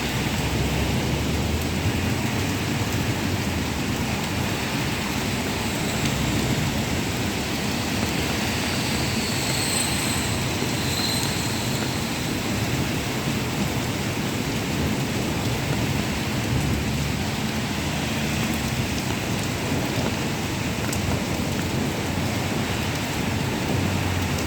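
Heavy rain pouring steadily, with a continuous low rumble underneath.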